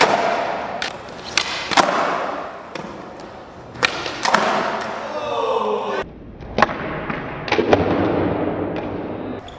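Skateboard doing flatground flip tricks on smooth concrete: repeated sharp clacks of the tail popping and the board landing, with the wheels rolling between them.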